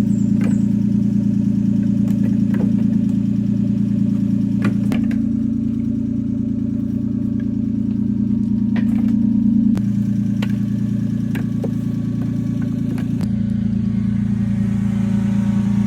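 An engine running steadily, its pitch shifting slightly in steps a few times, with scattered light clicks.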